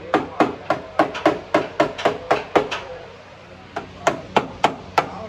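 Hammer blows on the lower side panel of a Suzuki Alto's body: a quick run of sharp strikes, about four a second, then a pause of about a second, then several more strikes.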